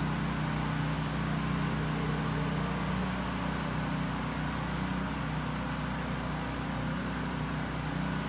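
Steady low background hum with an even hiss over it, the room tone of a large indoor showroom.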